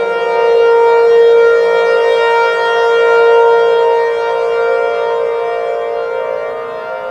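Emergency warning siren sounding a steady wail at a held pitch, several tones together. It swells louder in the first few seconds and eases a little near the end.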